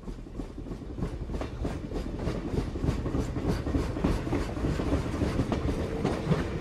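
Train rolling along the rails with a steady clickety-clack of wheels over rail joints, about four clicks a second, fading in at the start.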